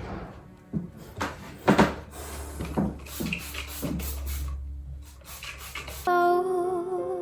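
Irregular knocks, clatter and rubbing of furniture and things being handled, as a table is emptied and taken apart, with a low hum under it from about two seconds in. Soft music comes in near the end.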